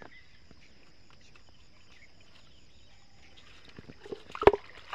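Insects chirring steadily in the background, then a handful of sharp knocks and rattles near the end as the bamboo-slat fish trap is handled, one knock much louder than the rest.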